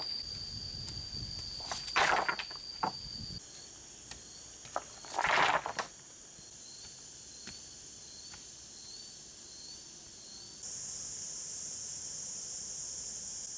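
Insects calling in a steady, high, thin tone, with two loud clatters of rocks being tipped out of a woven basket onto stones, about two and five seconds in.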